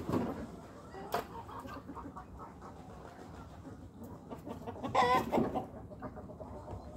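Free-range chickens clucking, with a sharp click about a second in and one louder, wavering bird call about five seconds in.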